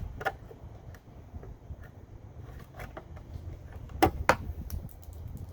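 Flathead screwdriver prying at a plastic press-in fastener on a Jeep Patriot tail-light housing: faint scraping clicks, then two sharp clicks close together about four seconds in as the plastic pops, over a low rumble.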